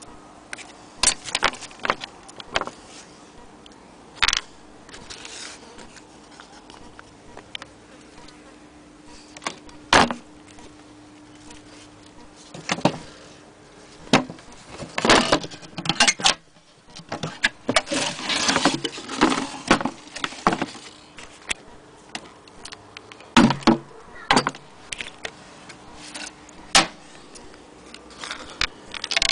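Handling noise on the wooden base and cover of an antique sewing machine: irregular taps, clicks and rustling scrapes from hands and the handheld camera, busiest in the middle stretch, over a faint steady hum.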